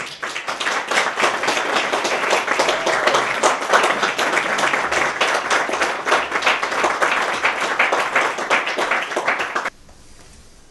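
Audience applauding, a dense patter of many hands clapping that cuts off suddenly near the end.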